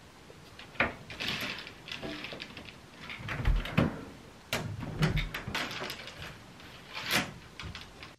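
Curtains being pulled open along their rail: fabric rustling and runners sliding, with a few sharp clicks and knocks and a couple of low thuds.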